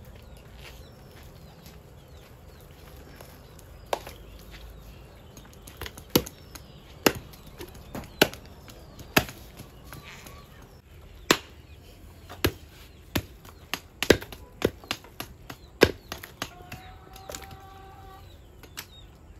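Pig carcass being chopped up with a heavy blade: a run of sharp, separate chopping strikes, irregular but about one a second, starting about four seconds in and pausing briefly near the end.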